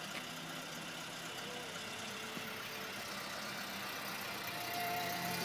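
1991 Citroën XM's engine idling steadily.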